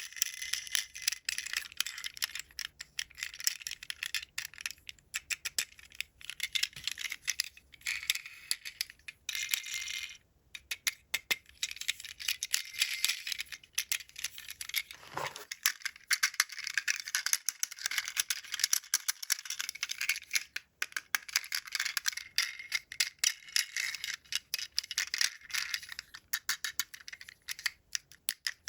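Hands handling plastic toy packaging and toy parts: continuous crinkling with many small clicks and rattles, pausing briefly about ten seconds in.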